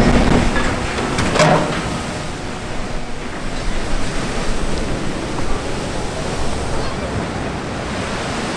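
A cargo ship's hull slides sideways off a slipway into a canal in a side launch, hitting the water with a heavy splash at the start. A second surge comes about a second and a half in, then the displaced wave rushes and washes over the quay in a steady, slowly fading roar of water, with wind on the microphone.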